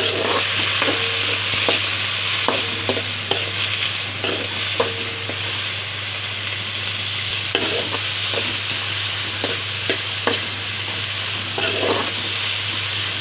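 Chopped vegetables (onion, carrot, tomato, green chilli, curry leaves) sizzling steadily in hot oil in a metal kadai, with a spatula stirring them and scraping against the pan at irregular intervals.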